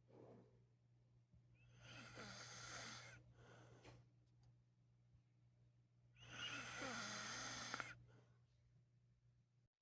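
A sleeping man snoring softly: two long, rasping breaths about four and a half seconds apart, the second louder, over a faint steady hum.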